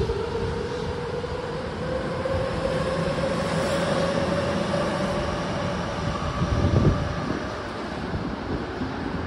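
Toyo Rapid Railway 2000 series electric train accelerating out of an underground station: a traction motor whine rising slowly in pitch over the rumble of wheels on rail. About seven seconds in there is a brief louder rumble as the train clears the platform, then the noise fades down the tunnel.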